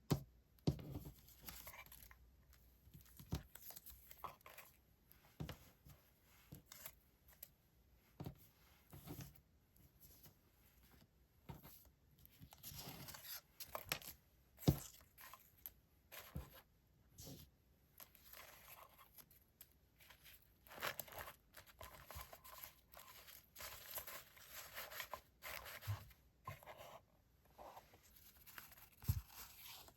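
Paper stationery and its packaging handled close to the microphone: crinkling, rustling and tearing, with scattered light taps and knocks as items are picked up and set down on the desk.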